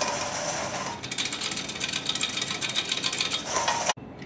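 Hand-operated metal flour sifter dusting powdered sugar, its mechanism making a fast, even clicking rattle that stops abruptly near the end.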